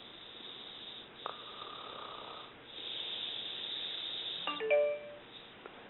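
A woman snoring in slow, hissing breaths, one of them carrying a thin whistle. About four and a half seconds in comes a short, louder snort with a squeaky, stuttering tone.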